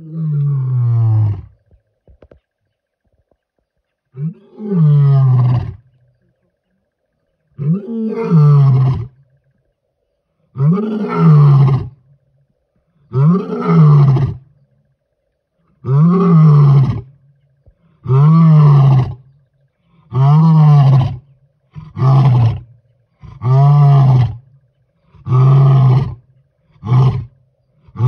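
Male lion roaring: a bout of about a dozen loud, deep calls, each rising then falling in pitch. The calls come closer together as the bout goes on and end in short, quick grunts.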